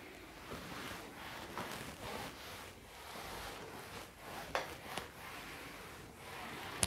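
Faint shuffling and clothing rustle of a person moving across a small room, with a few light clicks or taps, the sharpest about four and a half seconds in and near the end.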